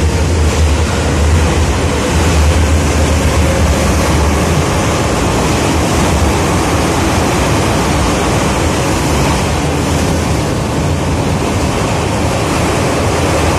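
Running noise heard inside an 81-717.5 metro car under way through a tunnel: a loud, steady rush and rumble of wheels on rail, with a low hum strongest in the first few seconds.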